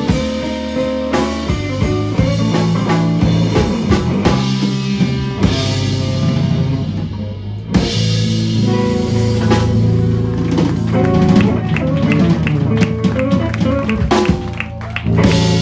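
A live rock band of electric guitar, electric bass and drum kit playing an instrumental passage. There is one sharp loud hit about halfway through and a run of sharp accented hits near the end.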